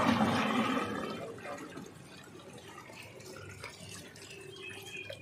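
Water pouring from a plastic bucket into a large steel pot of jaljeera, splashing onto the liquid. Loudest in the first second, then settling to a quieter, steady pour.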